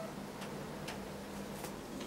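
A few faint, sharp ticks spaced irregularly over a quiet, steady room hum.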